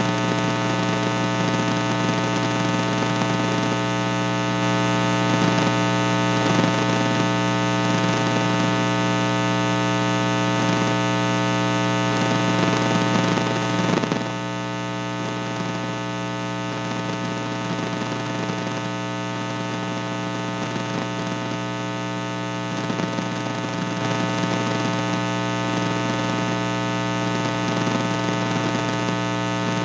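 Loud, steady electrical mains hum and buzz with many evenly spaced overtones and a hiss underneath, dipping slightly in level about halfway through.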